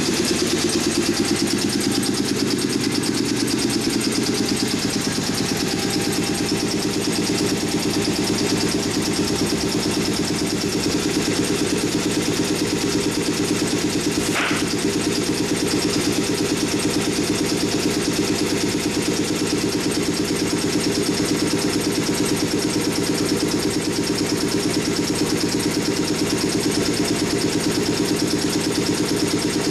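Steady mechanical drone of a running CNC router setup, with one short click about halfway through.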